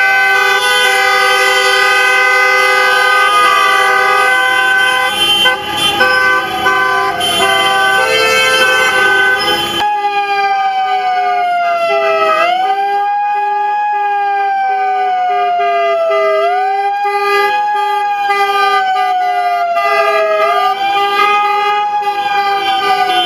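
Several car horns held down together, honking steadily. About ten seconds in, a siren takes over, wailing slowly down in pitch and sweeping back up about every four seconds.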